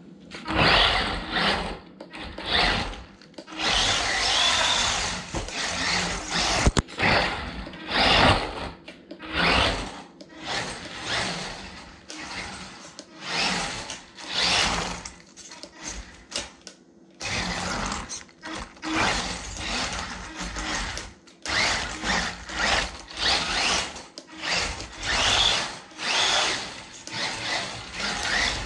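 Small electric RC truck's motor and drivetrain whining in repeated throttle bursts, about one a second, some short and some held longer, with a brief pause about two-thirds of the way through.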